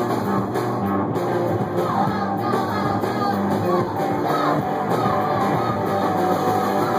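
Live rock band playing punk blues: electric guitar and drums, with yelled singing over them from about two seconds in.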